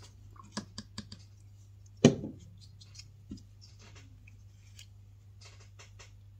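Light clicks and taps of small hard plastic pieces and tools being handled on a craft table, with one louder knock about two seconds in.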